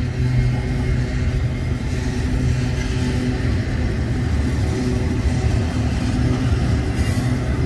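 Double-stack intermodal container train rolling past at close range: a steady, continuous rumble of its well cars' wheels on the rails.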